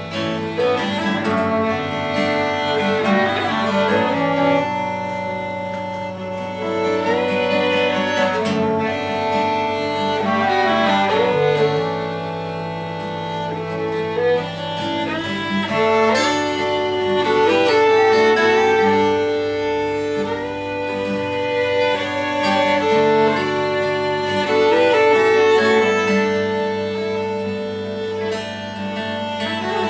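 Live instrumental trio of violin, clarinet and acoustic guitar playing a folk-style tune, with the violin and clarinet carrying held melody lines over guitar accompaniment.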